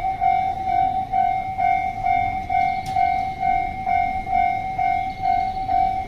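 Japanese railroad crossing's electronic warning bell ringing: an even, high ding repeating about three times a second, over a low rumble.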